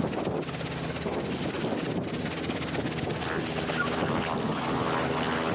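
Robinson R44 helicopter in a low hover, its piston engine and two-blade rotor running steadily.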